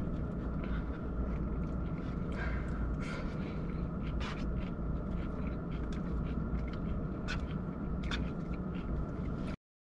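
Steady low rumble in a car cabin, with a few short sniffles from a woman wiping away tears; the sound cuts off suddenly near the end.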